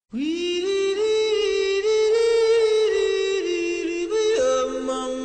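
Music: a melody of long held notes stepping up and down, with a second, lower note joining about four seconds in.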